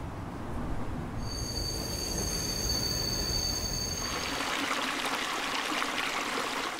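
Steady low rumble of vehicle noise with two high, steady squealing tones held for about three seconds. From about four seconds in, a loud hiss swells over it.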